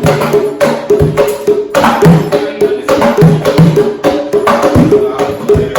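Hand drums playing a quick, steady rhythm of pitched drum strokes.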